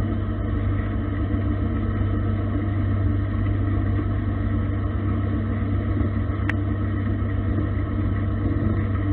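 Gildemeister CTX 400 S2 CNC lathe running, its motor spindle turning the chuck and workpiece with a steady low hum. A single short click about six and a half seconds in.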